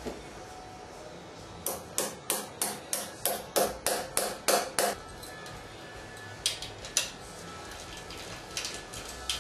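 Hammer tapping metal masonry anchors into drilled holes in a masonry wall: a run of about ten quick strikes, roughly three a second, each with a slight metallic ring, then two more blows and a few light knocks near the end.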